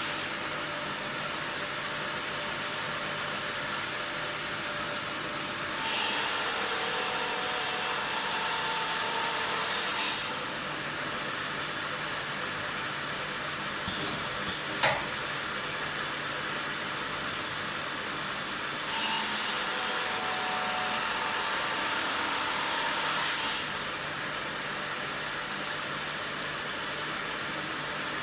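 Machine for making metal wire scourers running steadily. Twice it grows louder and hissier for about four seconds, and there is a single sharp click about halfway through.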